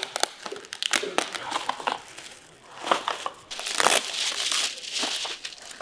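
Plastic bubble wrap crinkling and crackling as hands press and wrap it around a picture frame, in uneven crackles with a longer, louder rustle around four seconds in.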